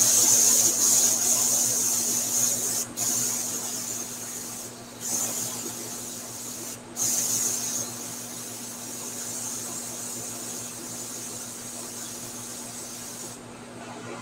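Airbrush hissing as it sprays paint. The air cuts off for a moment three times, then the hiss carries on more softly and stops shortly before the end.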